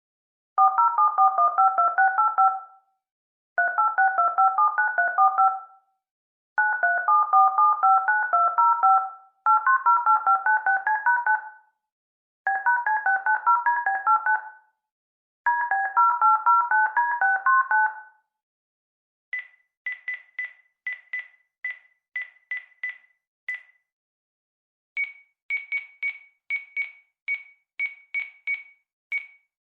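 Telephone keypad dialing: six quick runs of two-tone DTMF beeps, each about two seconds long, with short pauses between them. Past the middle the beeps change to two runs of short single high-pitched beeps.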